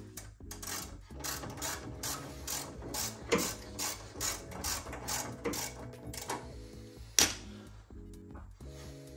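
Hand ratchet wrench clicking in a steady run of strokes, about two to three a second, as a nut on a car's front suspension knuckle is worked. A sharper click comes about three seconds in, and the loudest about seven seconds in.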